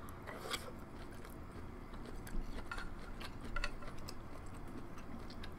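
Soft eating sounds: a person quietly chewing a mouthful of corn cheese, with scattered small clicks of mouth and utensil.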